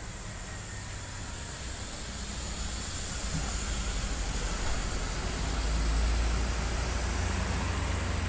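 Large intercity coach bus driving past close by, its diesel engine rumble building and peaking a few seconds in, with a faint high whine near the end.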